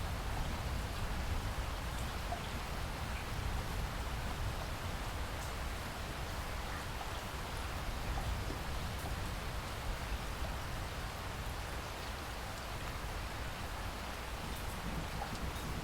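Steady rain falling, a continuous even hiss with scattered faint drop ticks and a low rumble underneath.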